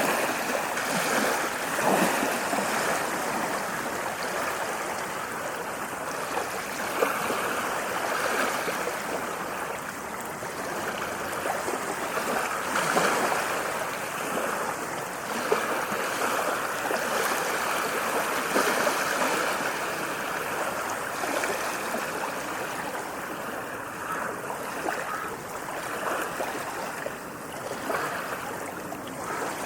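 Sea waves washing in a continuous rush of water that swells and eases every few seconds.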